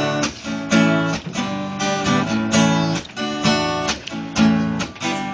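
Acoustic guitar strummed in a steady rhythm, playing the instrumental intro of a country song before the vocals come in.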